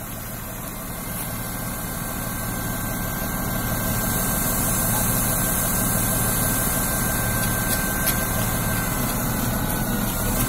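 Wheel loader's diesel engine running as its raised bucket of sand is tipped, a steady low throb that grows louder over the first few seconds and then holds.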